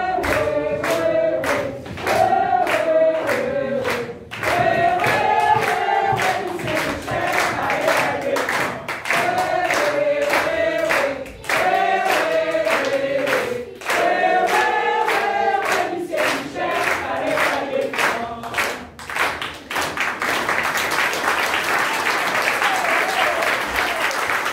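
A group of voices sings together over steady rhythmic hand-clapping. About twenty seconds in, the song ends and general applause takes over.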